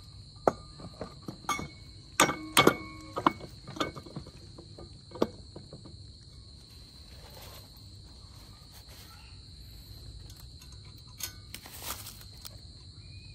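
Steel tiller tines and attachment parts clanking and clinking as they are handled and fitted onto a mini tiller's axle. Several ringing metal knocks come in the first few seconds, the loudest about two and a half seconds in, with two more near the end. Crickets chirr steadily throughout.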